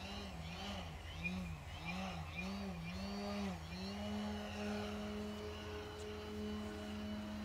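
Electric motor and propeller of an aerobatic RC plane whining in flight, the pitch rising and falling about twice a second as the throttle is worked, then holding steady from about halfway through.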